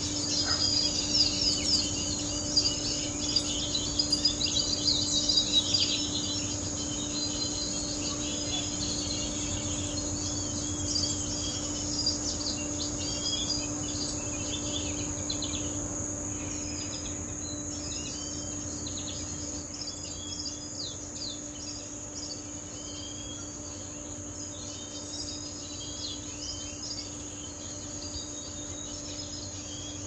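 Caged songbirds chirping and singing in short trills, busiest and loudest in the first few seconds and then more scattered. Underneath runs a steady high insect drone and a low steady hum.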